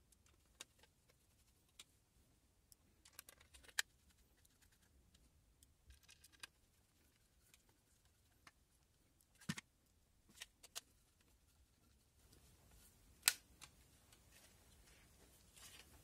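Faint, scattered clicks and ticks of a screwdriver turning small screws into an SSD mounting bracket while the drive and bracket are handled, with near silence between. The loudest clicks come about four, nine and a half and thirteen seconds in.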